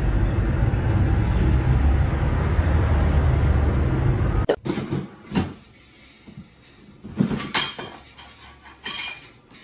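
Steady loud street traffic noise that cuts off suddenly after about four and a half seconds. Then scattered knocks and plastic rattles as a cat moves about inside a swing-lid plastic trash can, the loudest cluster about two thirds of the way through.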